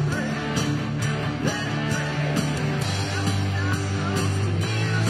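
A rock band playing, with guitar over a steady beat that falls about twice a second.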